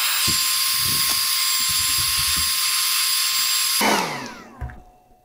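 Handheld hair dryer blowing with a steady rushing noise and a motor whine, switched off about four seconds in and winding down with a falling whine.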